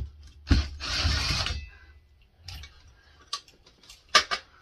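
Scattered sharp clicks and knocks of small metal parts on an old ceiling fan as its blades are taken off and its hardware and pull chains knock about. About a second in comes a short rough scraping rustle, and a louder double knock comes near the end.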